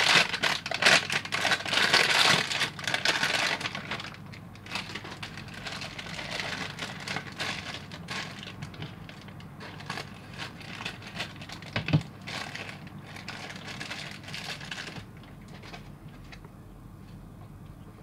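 Plastic wrapping crumpled and crinkled by hand as a blind-box figurine is unwrapped: loudest in the first few seconds as the white wrapper is scrunched, then lighter crinkling of a clear plastic bag. There is a single sharp click about twelve seconds in, and the crinkling stops about three seconds before the end.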